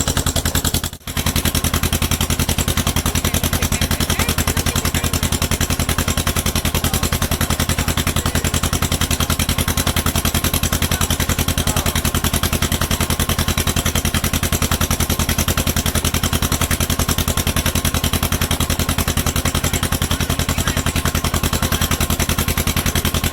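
An engine running steadily at a constant speed, with a rapid, even pulse; the sound drops out briefly about a second in.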